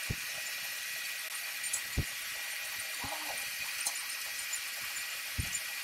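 Gear-change levers on a lathe's headstock being shifted, giving three soft low knocks over a steady whine of running machinery.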